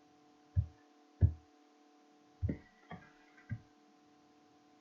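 Five short, soft low knocks at uneven spacing, over a steady low electrical hum.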